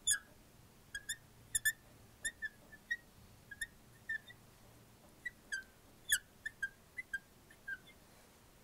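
Marker squeaking on a glass lightboard as words are written: a string of short, high squeaks, a few each second, with a brief pause near the middle and the loudest squeak a little after six seconds in.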